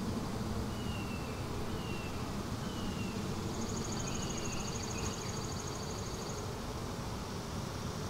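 Steady buzzing hum of honeybees on the exposed frames of an open Langstroth hive.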